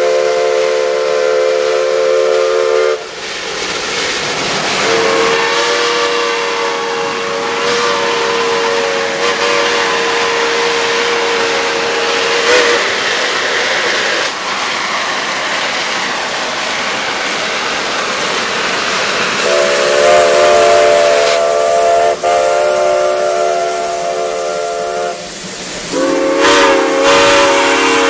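Two Shay geared steam logging locomotives blowing their steam whistles in a series of long blasts, with a loud steam hiss between and under them as they pass.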